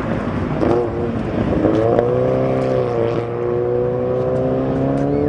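1969 Lotus Europa's four-cylinder engine pulling hard under acceleration, its pitch rising, dipping briefly about three seconds in, then climbing steadily again.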